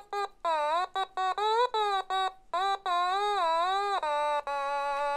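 Celebratory music: a simple one-line tune of short notes that slide and waver in pitch, ending on a long held note near the end.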